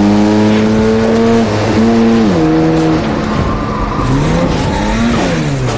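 Car engine accelerating hard, its pitch climbing and dropping sharply twice as it shifts up a gear, then revving up and down in the second half.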